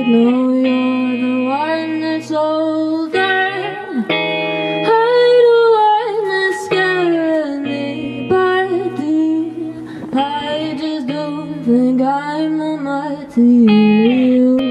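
Live acoustic band music: guitar with singing, a melody that slides between notes over held lower notes.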